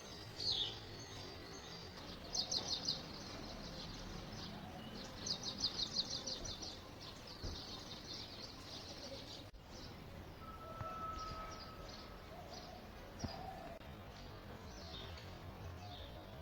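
Small birds chirping and singing. Short high notes sweep downward, and there are two quick trills of about ten notes a second, then scattered single chirps over faint outdoor background noise.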